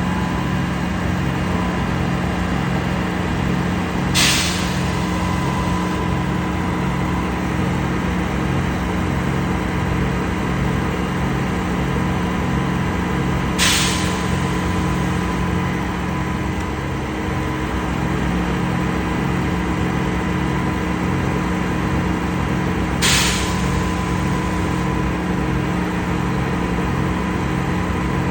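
Concrete pump running steadily, its engine drone carrying a regular low pulsing. Three short, sharp hisses come about nine and a half seconds apart.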